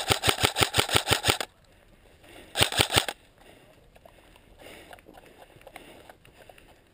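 Airsoft rifle firing on full auto: a burst of sharp cracks at about eight shots a second lasting a second and a half, then a shorter burst of a few shots about a second later.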